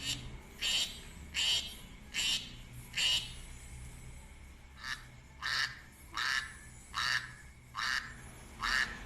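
Duck quacking over and over, short calls about one every three-quarters of a second, with a brief pause midway.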